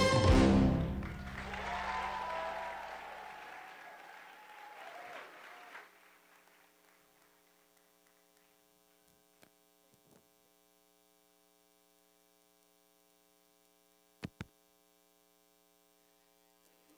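Music cuts off and applause fades out over about five seconds. The rest is a faint steady electrical hum, with two quick clicks near the end.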